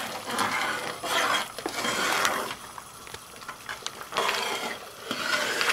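A spoon stirring thick, simmering dal in a metal pot, scraping and clicking against the pot in several bursts, with a quieter stretch in the middle.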